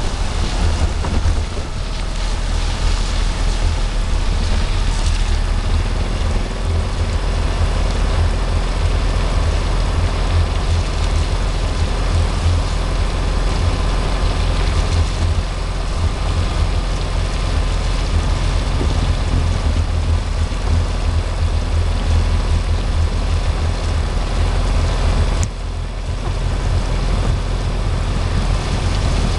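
Boat engine running steadily under way, a low rumble with wind buffeting the microphone; the level dips briefly about 25 seconds in.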